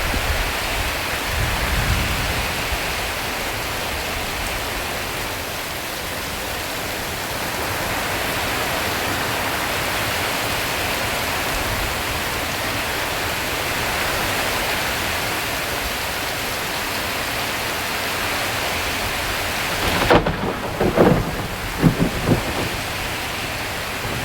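Heavy rain falling steadily on a tin roof, with a low rumble of thunder in the first few seconds. A few short, louder sounds stand out near the end.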